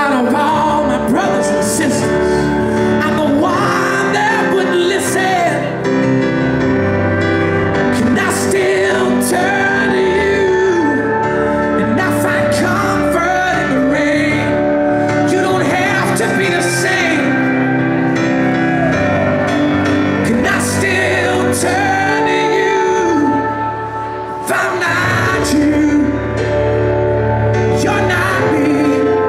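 A live band and male singer performing a song through a concert PA: sustained chords under a lead melody that bends and slides in pitch. The music drops briefly in level about three quarters of the way through, then comes back.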